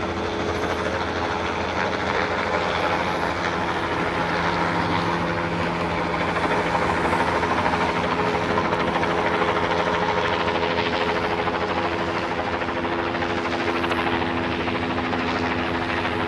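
Helicopter flying overhead: a steady rotor and engine drone carrying several held tones, swelling a little in the middle.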